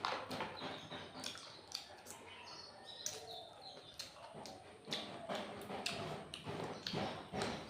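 Close-up chewing and lip-smacking while eating rice and curry, with irregular wet mouth clicks.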